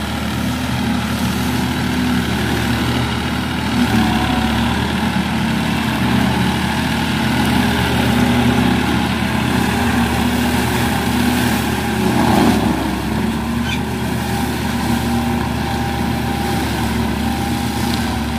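Massey Ferguson 9500 Smart four-wheel-drive tractor's diesel engine running steadily under load, driving a Lemken PTO mulcher that shreds piled leaf trash. A brief louder burst of noise comes about twelve seconds in.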